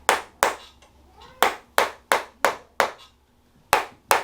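Sharp hand slaps, about three a second, in runs of two, then five, then two, with short pauses between.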